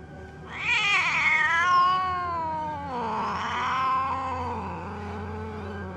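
Cat yowling in an angry standoff with another cat: a long wavering howl starts about half a second in and slides down in pitch, then turns into a lower, drawn-out yowl that fades near the end.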